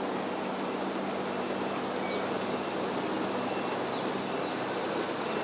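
Steady rush of surf and wind at the inlet, with a boat engine's low, even hum underneath.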